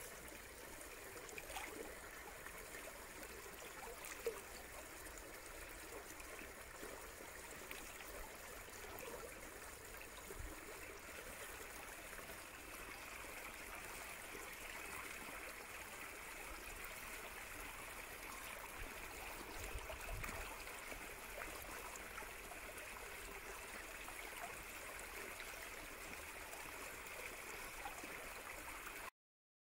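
Faint, steady trickle of a small stream running among rocks.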